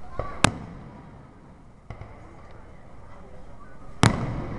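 Aerial firework shells bursting with sharp bangs: a loud bang about half a second in, a fainter one near two seconds, and another loud bang near the end.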